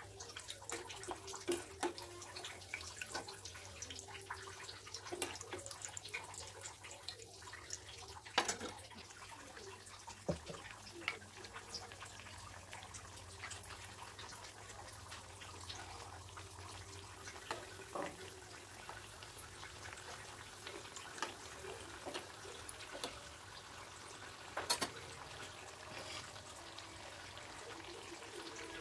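Wheat-flour biscuits deep-frying in hot oil in a pan: a steady sizzle with fine crackling throughout and a couple of sharper clicks.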